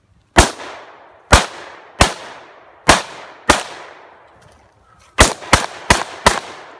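AR-style semi-automatic rifle firing nine shots, each trailing off in echo: five spaced about half a second to a second apart, then, after a short pause, a quicker string of four.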